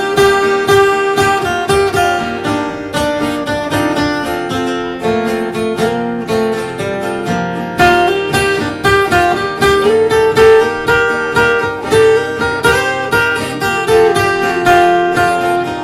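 Instrumental break in a country song: acoustic guitar strummed and picked in a steady rhythm, with melodic lead notes on top.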